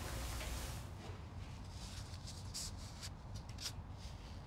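Soft rubbing and a few light clicks of a vinyl record being handled and set onto a turntable, over a low steady hum.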